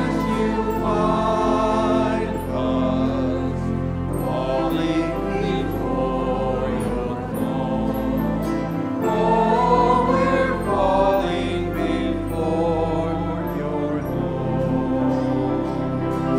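Praise band singing a worship song, several male and female voices on microphones with flute and instrumental accompaniment over steady held bass notes.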